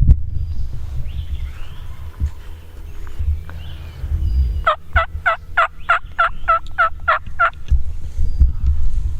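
Turkey yelping: a run of about eleven quick, evenly spaced calls at roughly four a second, starting about halfway through and lasting nearly three seconds. A low rumble runs underneath.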